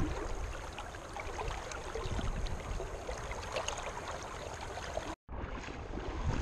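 River current rushing and splashing past close by, a steady noisy wash. It breaks off for a moment about five seconds in and then resumes.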